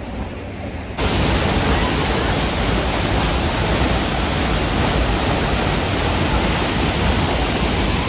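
Waterfall pouring, heard close up: a loud, steady rush of water that cuts in suddenly about a second in, after a quieter stretch of background noise.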